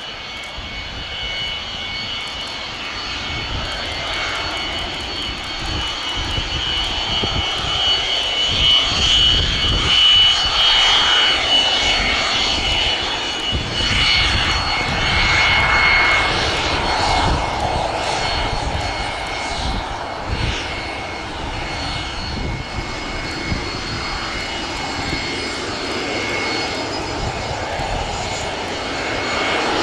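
A-4N Skyhawk jets taxiing past at taxi power, their Pratt & Whitney J52 turbojets giving a steady high-pitched whine over a rumble. The sound swells as they pass, loudest around the middle, then eases off a little.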